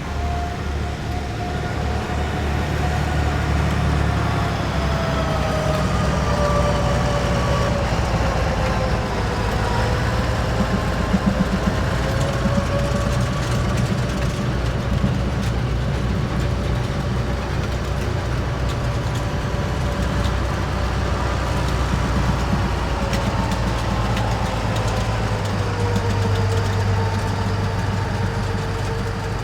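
Heavy military vehicles driving past in a column: a deep, steady engine sound with a whining tone on top that slides slowly down in pitch and levels off near the end.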